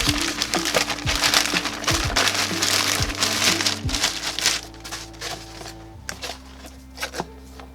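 A parcel of circuit boards being unwrapped by hand: dense crinkling and rustling of packaging for about the first four seconds, then a few light handling clicks. Background music plays throughout.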